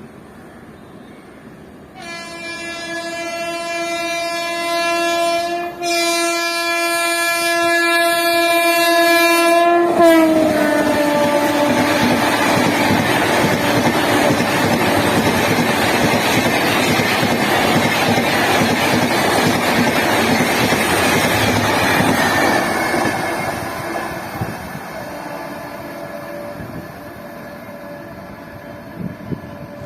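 A WAP-7 electric locomotive's horn sounds almost continuously as the Tejas express approaches, with a short break about six seconds in. The horn's pitch drops as the locomotive passes about ten seconds in. The rushing noise and clatter of the coaches' wheels on the track follow, from a train at about 100 km/h, fading away near the end.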